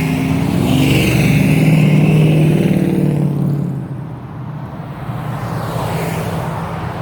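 A car drives past with a loud, rumbling engine and exhaust, swelling and then fading away about four seconds in; a quieter engine follows.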